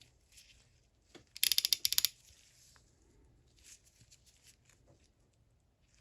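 A hand ratchet wrench turned briefly, its pawl clicking over the gear teeth in a quick run of about ten sharp clicks a little over a second in, with light handling of the tools around it.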